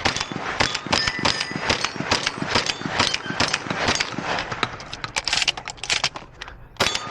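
Fast, irregular clattering and clicking from a shotgun competitor handling the gun and gear on the move, with no shots fired.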